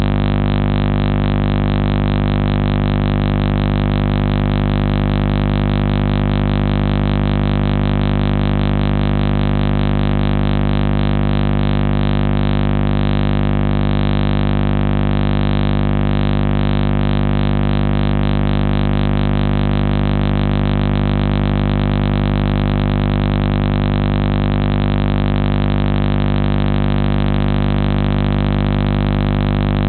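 A loud, steady electrical buzz: one unchanging pitched drone with many overtones, which does not vary at all. The passing train is not heard above it.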